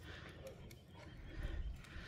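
Low rumble of wind buffeting the microphone, swelling about one and a half seconds in, over faint hiss.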